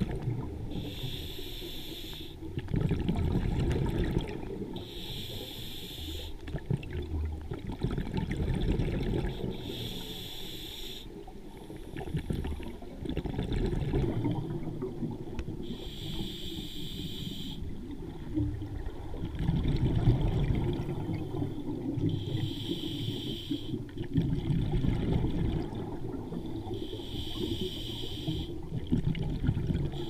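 Scuba diver breathing through a regulator underwater. There is a hiss on each inhale, about every five seconds, six times in all, and a low rush of exhaled bubbles in between.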